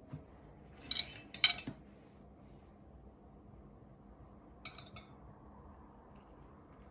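Tableware clinking: a quick cluster of sharp clinks about a second in, and a shorter pair near the middle.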